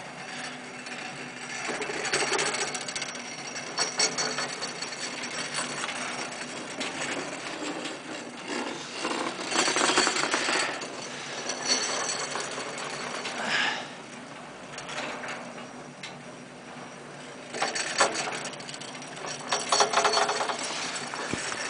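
Uneven rushing wind and snow noise on the microphone, rising in several surges; near the end a snowboard scrapes through powder snow close by.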